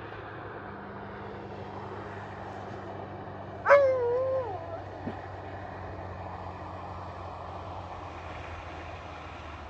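A dog lets out one drawn-out whine, falling in pitch, about four seconds in, over a steady low hum.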